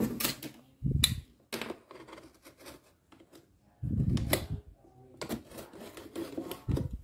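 A blade slitting the tape along the top seam of a cardboard box: scratchy scraping strokes and clicks, with dull thumps of the box being handled about a second in and again about four seconds in.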